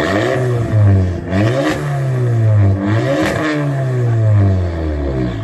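Car engine being revved in repeated throttle blips, its pitch climbing quickly and sinking back several times.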